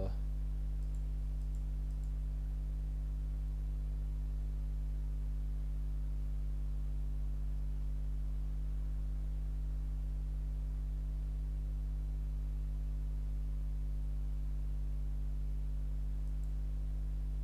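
Steady low electrical hum, with a few faint clicks about a second in and near the end.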